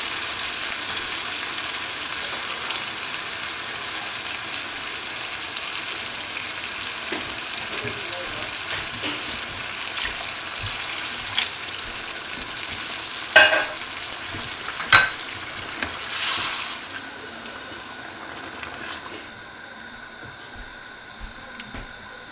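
Rajma curry sizzling in a non-stick frying pan on a gas stove with water just added: a steady hiss that fades gradually over the second half as it settles to a simmer. A couple of sharp taps come about two-thirds of the way through.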